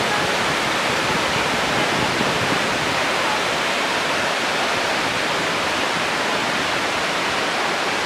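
Waterfall cascading over stepped rock ledges: a steady, even rush of falling water.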